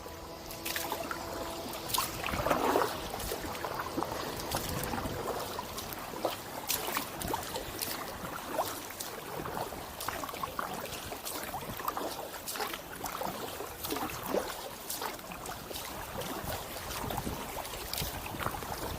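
Kayak paddle strokes in calm canal water: the blades dip and splash, and water drips and trickles off them, with a steady run of small sharp splashes and a bigger splash about two and a half seconds in.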